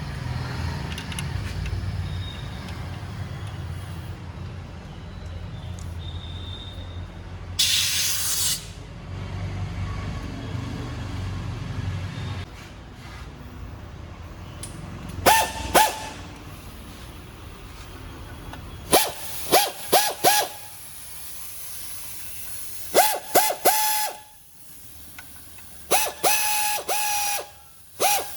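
An air impact wrench running in short bursts, each a rattling hammer with a whine, in several clusters over the second half, the last ones longer. This is typical of bolts being run in while a clutch set is fitted. Earlier there is a steady low rumble and one loud hiss of air lasting about a second.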